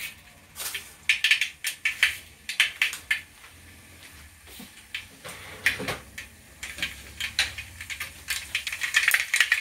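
Mustard seeds spooned into hot coconut oil in an aluminium uruli and starting to crackle and pop, with short sharp pops that come thicker near the end.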